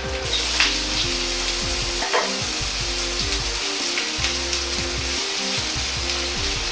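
Vegetables sizzling steadily in hot oil in a carbon-steel wok as more are tipped in, an even frying hiss.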